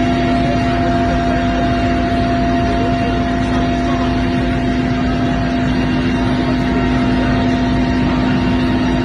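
Helicopter cabin noise heard from inside: a loud, steady drone of engine and rotors, with a few steady humming tones held throughout.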